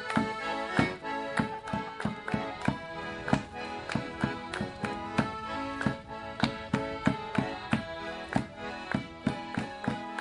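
Accordion playing a lively traditional dance tune live, with a steady sharp beat struck along about three times a second.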